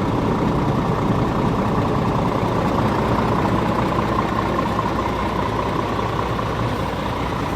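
Scania R450 tractor unit's diesel engine idling steadily, with a faint steady whine over the running.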